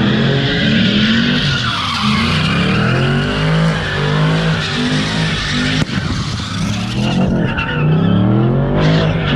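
Red Chevrolet Camaro doing donuts: the engine revs up and falls back again and again under a continuous tyre screech. There is one sharp crack about six seconds in.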